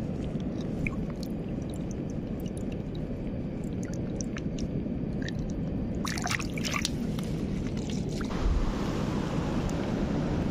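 A hand sloshing and splashing in shallow seawater over sand and seagrass, with small trickles and clicks over a steady low rush, and a cluster of sharper splashes about six seconds in.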